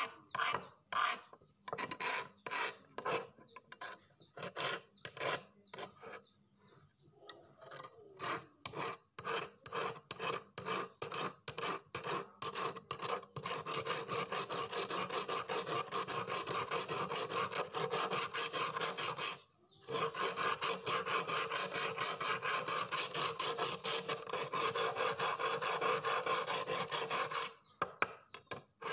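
Flat hand file rasping across the edge of a small rusty steel knife blade, stroke after stroke. The strokes are spaced out at first, then from about halfway in they run fast and steady, with two brief pauses in the later part.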